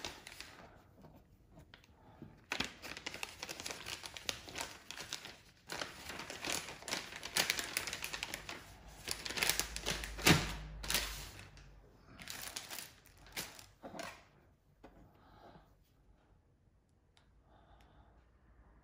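Plastic bags crinkling and rustling in irregular bursts as they are handled, with one sharper knock about ten seconds in; quieter after about fourteen seconds.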